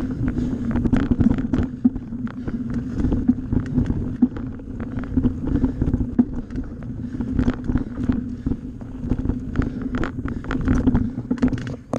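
Bicycle riding fast along a bumpy dirt woodland trail: tyres running on the dirt with a steady drone, frequent clicks and rattles from the bike jolting over roots and bumps, and wind on the microphone.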